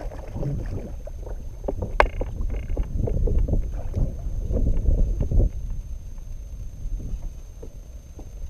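A hooked fish thrashing and splashing at the surface beside a kayak as it is reeled in, in irregular bursts that ease off after about five seconds. Wind rumbles on the microphone throughout, and there is one sharp knock about two seconds in.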